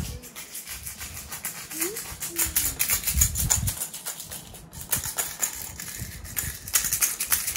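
Rattling in quick, continuous strokes, with a couple of brief vocal sounds about two seconds in.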